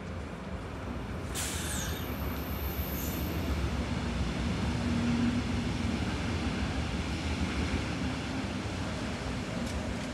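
Berlin S-Bahn electric train starting to pull out of the station, with a second train running past on the next track; the rumble swells towards the middle and eases off again. A sudden sharp sound comes about a second and a half in.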